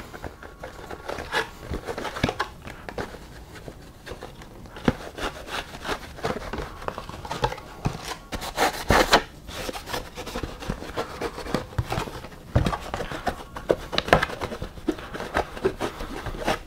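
Cloth rag wiping and rubbing a thin polycarbonate RC buggy body shell, with irregular light clicks and knocks as the shell is turned and flexed in the hands. The busiest handling comes about nine seconds in.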